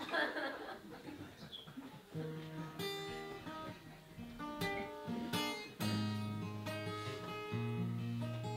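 Acoustic guitar strummed as the intro to a song, starting about two seconds in: a few chords picked out, then steady strumming with the chords ringing on. A short burst of noise comes in the first second before the playing begins.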